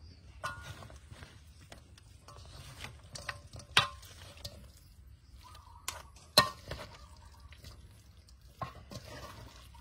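Metal spoon stirring chopped pig's face and creamy dressing in a metal bowl: soft wet mixing sounds with several sharp clinks of the spoon against the bowl, the loudest about four and six and a half seconds in.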